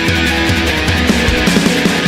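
Instrumental intro of a pop-punk rock song: electric guitars playing over a drum beat, with no singing yet.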